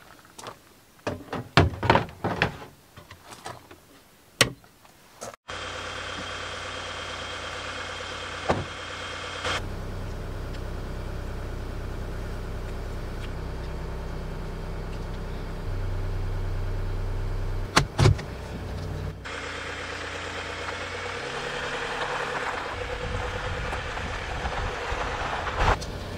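Sharp knocks and clunks of plastic water jugs being handled in a cabinet under a sink, then a steady low rumble of a Hyundai Starex van driving, heard from inside the cabin, with a few short knocks along the way.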